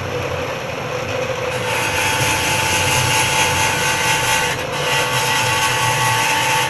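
Bench grinder running, with a steel hand-saw blade held to the wheel to shape its teeth. A loud grinding of metal on the wheel starts about one and a half seconds in, breaks off briefly near five seconds, then picks up again.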